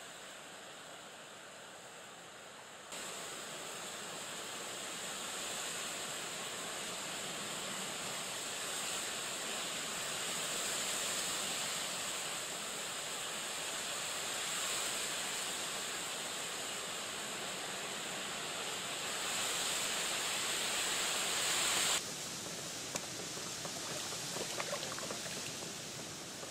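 Steady wind and choppy lake water lapping, heard as an even rushing hiss. Near the end come small splashes from a hooked fish thrashing at the surface beside the boat.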